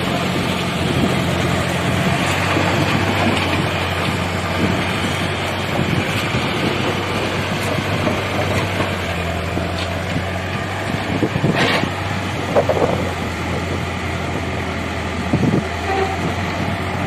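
Backhoe loader's diesel engine running steadily, with a few sharp knocks, the loudest about twelve seconds in.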